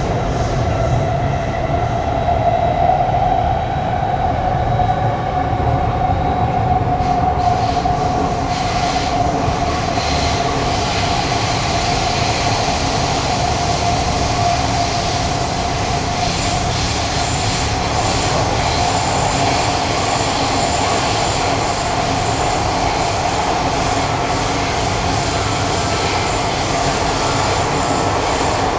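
Interior of a Kawasaki Heavy Industries C151 train running through a subway tunnel: a steady, loud rumble of wheels and rails with a high whine that wavers slightly in pitch. A fainter, higher whine joins about halfway through.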